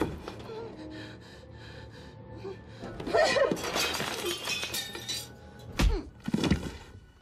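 Sounds of a violent struggle: a sharp thud at the start, a crash with breaking, shattering noise about three seconds in, and two more heavy blows near the end, with a woman's strangled cries and tense music underneath.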